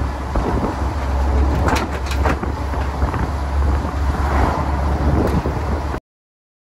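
Open-sided tour bus driving uphill: engine and road noise under a heavy low rumble, with a few sharp knocks. The sound cuts off suddenly about six seconds in.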